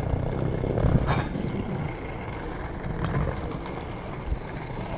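Skate wheels rolling over a paved path, a steady low rumble, with a brief sharper click about a second in.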